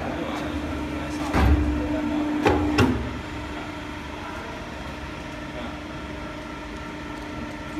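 Hydraulic bone-pressing machine opening its mould: a steady pump hum with a held tone for about a second and a half. A deep thump and two sharp clunks come between about one and a half and three seconds in, then the machine runs on with a steady hum.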